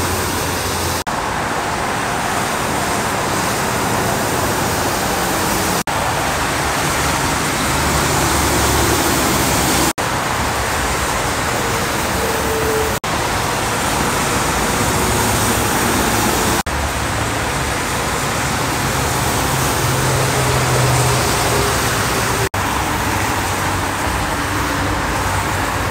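Steady freeway traffic: tyres hissing on wet pavement as trucks and cars pass, with low engine hums rising and fading. Several brief dropouts break the sound.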